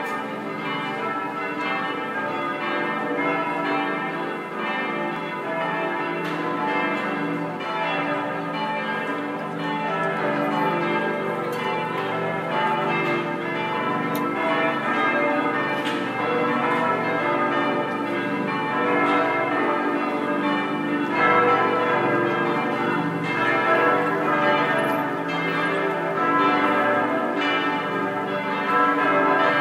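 Several church bells of St. Peter und Paul ringing together in a continuous full peal, their tones overlapping without a break: a test ringing as the bells are brought back into use.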